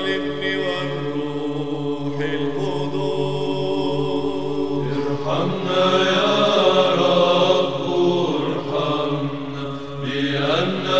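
Background music: slow vocal chanting with long held notes over a steady low drone.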